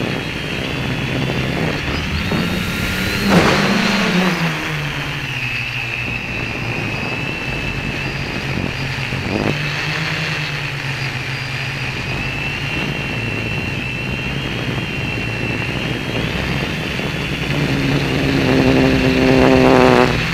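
Quadcopter's electric motors and propellers whining steadily in flight, with a brief swing in pitch about three seconds in. Near the end the motors throttle up and get louder.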